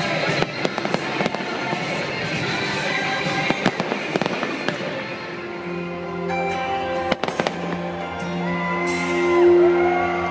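Aerial fireworks bursting overhead in a rapid run of crackling pops, over music. From about halfway in the crackle thins to a few sharp bangs while the music, with sustained notes, comes to the fore.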